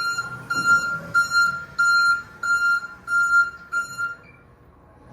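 Electric reach truck's warning beeper sounding a rapid series of high beeps, about two to three a second, over a low machine hum. The beeping stops about four seconds in.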